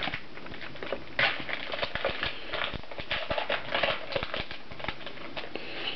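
Trading cards being handled and slid against one another: an irregular run of soft clicks and rustles.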